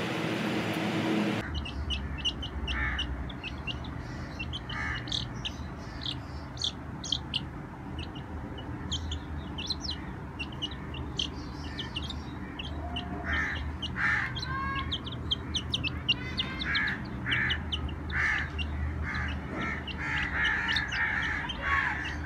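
Young chicks peeping: rapid, short, high cheeps, with louder, lower calls joining in the second half. The first second and a half is a burst of mixed noise before the chicks are heard.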